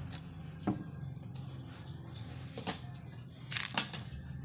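Several sharp clicks and taps of a metal hacksaw blade knocking on concrete as it is picked up, the loudest about two and a half and three and a half seconds in, over a steady low hum.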